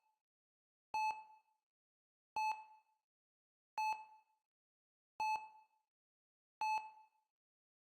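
Hospital heart rate monitor beeping steadily, a short single-pitched beep with a brief fading tail about every 1.4 seconds, five times.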